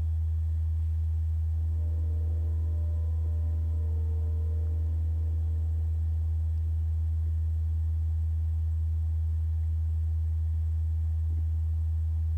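Steady deep electrical hum, a single low tone that does not change, with faint higher tones for a few seconds near the start.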